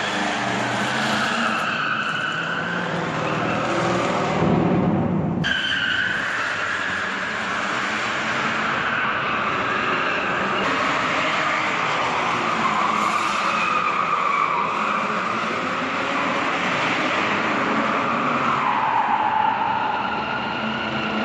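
Car tyres squealing in long skids, with the engine revving, as a car slides through drifts on pavement. The sound breaks off abruptly about five seconds in and picks up again.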